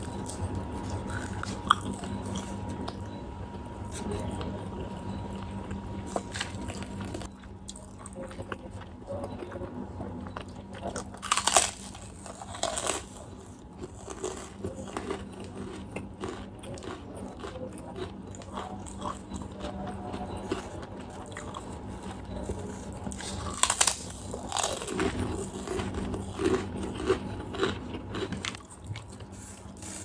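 Close-up eating sounds: wet chewing of fried quail and rice, with loud crunching bites of a puffed kerupuk cracker, the loudest clusters coming about a third of the way in and again near the end.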